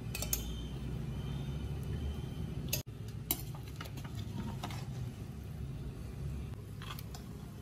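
A perforated metal ladle stirring and turning cooked biryani rice in a metal pressure-cooker pot, with scattered light clinks and scrapes of metal on metal over a low steady hum.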